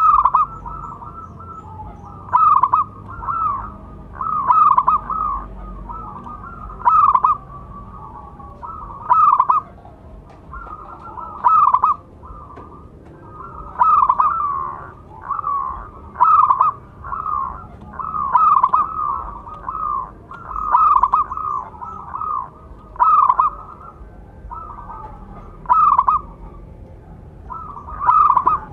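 Zebra dove (perkutut) singing: repeated phrases of quick, rolling coos, about one phrase every two seconds.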